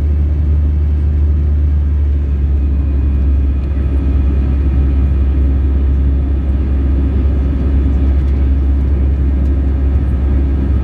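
Airbus A321 jet engines heard inside the cabin from a window seat over the wing during the climb after takeoff: a loud, steady low rumble with a faint steady whine above it.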